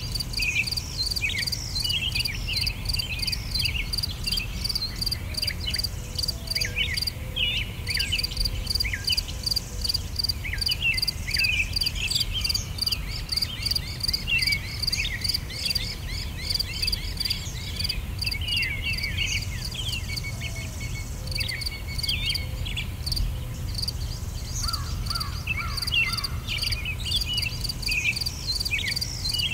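Outdoor nature ambience: insects chirping in a steady pulsing rhythm, with birds giving many short chirping calls over the top and a low rumble underneath.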